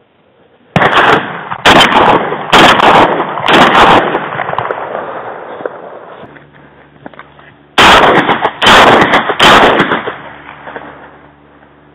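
Shotgun blasts at close range: four shots about a second apart, then after a pause three more in quick succession, each loud with a long ringing tail.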